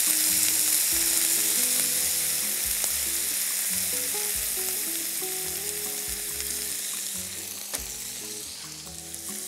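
Orange juice squeezed into a hot pan of dried fruit sautéing in butter, sizzling loudly as it hits the pan, then slowly dying down over the next several seconds.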